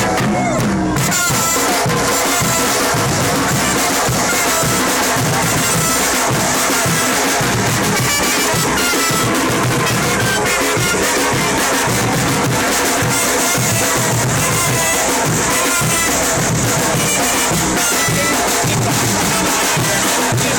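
Loud music with a steady drum beat, over crowd noise.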